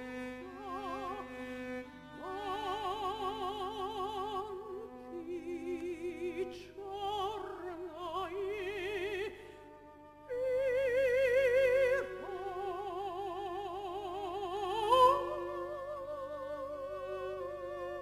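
Operatic soprano singing with wide vibrato to a cello playing alongside. There is a short lull about halfway, then a louder held note, and about three-quarters through a pitch slides up and holds.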